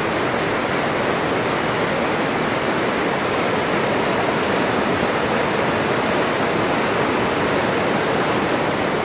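River rapids, whitewater rushing loudly and steadily over rock.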